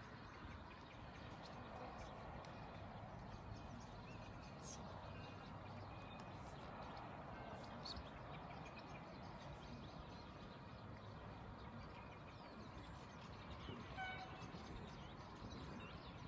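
Faint, steady distant town ambience: an even rumble of far-off traffic or rail with a few small bird chirps over it, and a short pitched call near the end.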